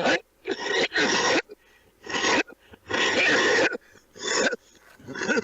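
A man coughing in a run of about seven harsh coughs, one of them longer and drawn out in the middle.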